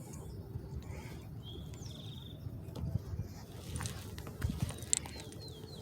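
A small bird's short, high trilled call about a second and a half in, over a low outdoor rumble and a few light clicks.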